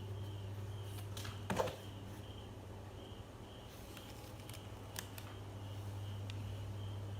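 A faint, high chirping repeats about twice a second over a steady low hum. A short, louder sound comes about one and a half seconds in, and a few sharp clicks are scattered through.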